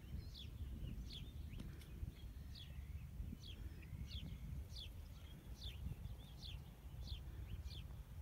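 A bird calling with short, quick, falling chirps, repeated about two to three times a second and often in pairs, over a steady low rumble.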